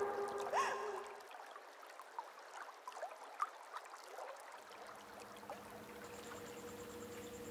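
Background music fading out within the first second, then faint trickling, gurgling water-like sounds with small scattered blips. From about five seconds a steady low hum takes over, joined about a second later by a faint high pulsing tone.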